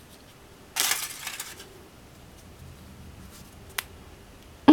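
Plastic Kinder Surprise toy capsule being worked open by hand: a short rattling clatter of hard plastic about a second in, then a single sharp click near the end.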